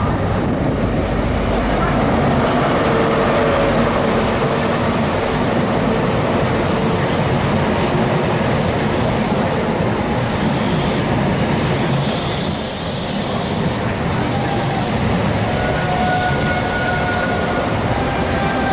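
InterCity 125 high-speed diesel train running through a station, its power car and coaches rumbling steadily past, with repeated hissing bursts. Thin wheel or brake squeals come in near the end.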